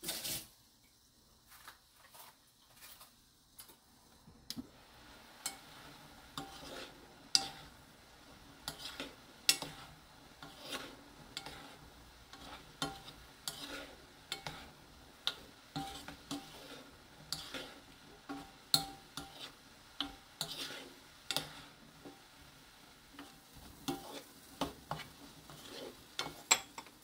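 A wooden spoon stirring beans in a nonstick frying pan, scraping and tapping against the pan about once a second over a soft steady sizzle from the soy-sauce glaze, which has cooked down until only a little liquid is left. The stirring starts a few seconds in.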